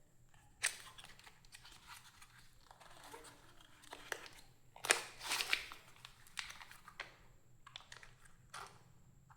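Packaging of new brake pads being handled and opened: scattered crinkling and rustling, loudest about five seconds in.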